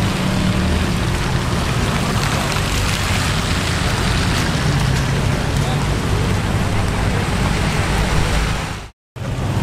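Cars driving slowly past on a wet road: a steady low engine rumble at low revs under the hiss of tyres on wet tarmac. It breaks off abruptly for a moment near the end.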